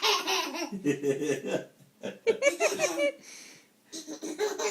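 Baby laughing in three bouts, with short pauses between them.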